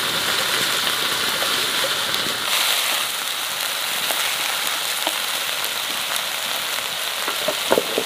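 Leafy greens sizzling as they stir-fry in a hot black wok over a wood fire: a steady hiss with light clicks and scrapes of wooden chopsticks against the pan, and a sharper knock near the end.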